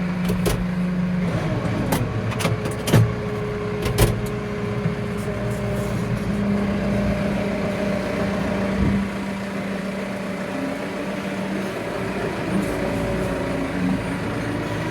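Tractor engine running steadily, with a few sharp knocks about three and four seconds in.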